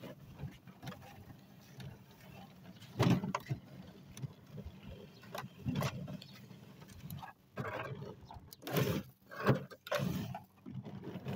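Hoover Spin Sweeper push sweeper rolling over a driveway through grass clippings, giving irregular rustling and scraping with several sharp knocks. Its brush roll is jamming up with clumps of grass.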